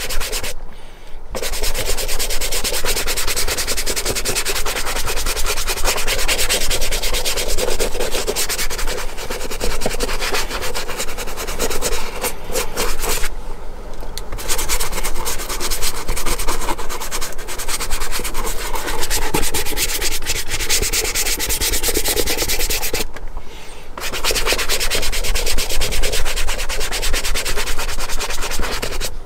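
A brush scrubbed rapidly back and forth over a leather boot, working coloured shoe cream into the dry leather, pausing briefly three times.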